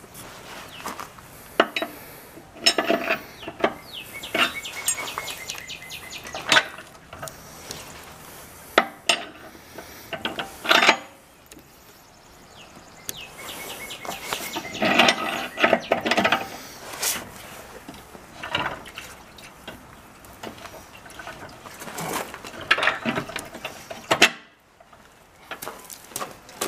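Steel parts of a hitch-mounted motorcycle carrier clinking and scraping as a metal rod is worked through a hole in the carrier's plate, in irregular sharp clanks with short rattles.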